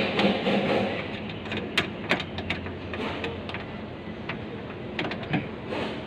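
Scattered light clicks and taps from a hand working among the latch, rods and lock inside a Suzuki Carry's door cavity, over steady background noise.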